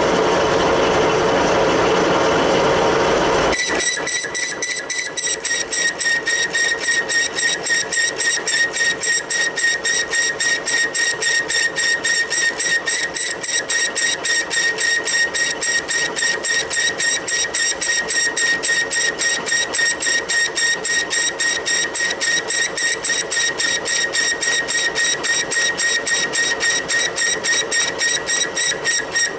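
Metalworking machine tool running. A dense noise stops abruptly about three and a half seconds in, and a steady high whine with a rapid, regular pulsing follows and carries on.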